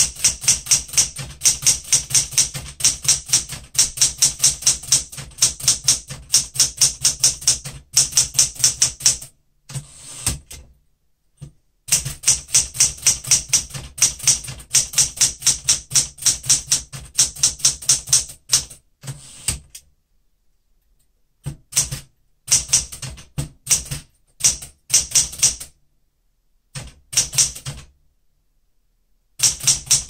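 Fast touch-typing on a Smith-Corona Galaxie Deluxe manual typewriter set to low touch pressure: rapid runs of sharp key-and-typebar strikes, several a second, broken by a few short pauses.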